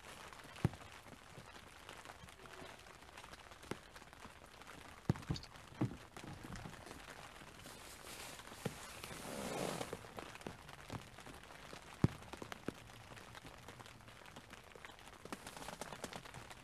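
Light rain outdoors: a faint steady hiss with scattered single sharp ticks of drops striking close by. A brief rushing swell comes about two-thirds of the way through.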